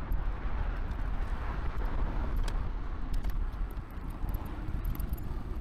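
Steady road-traffic noise from cars on a multi-lane arterial road, heard from a cargo bike riding on the path beside it. Under it is a low, gusting rumble of wind on the microphone, and a few light clicks come through.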